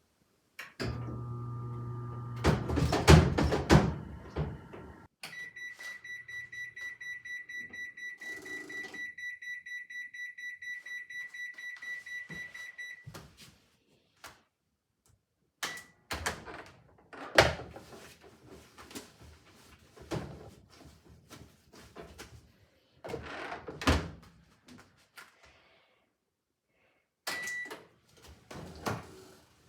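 Old washing machine's electronic beeper sounding a long alarm of rapid high beeps, about five a second, for roughly eight seconds. Clunks and knocks of the lid and drum follow, with one short beep near the end, as from a button press.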